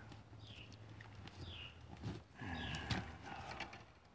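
Utility knife scraping and slitting the plastic sheathing of electrical cable, with scattered clicks and knocks of handling the wires at the box. A short falling chirp repeats about once a second behind it.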